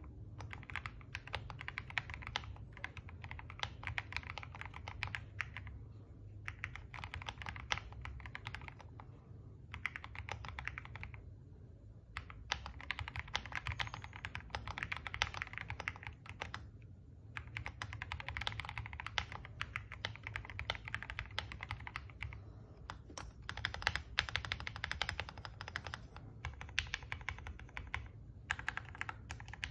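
Typing on a keyboard: runs of rapid key clicks broken by short pauses, over a steady low hum.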